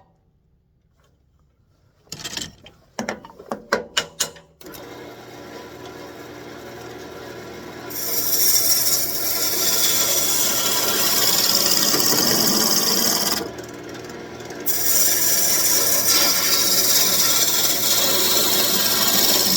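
A few sharp knocks, then a wood lathe running and a gouge cutting into a spinning birch branch: a loud steady hiss of shavings being taken off, which breaks off briefly about two-thirds through and starts again.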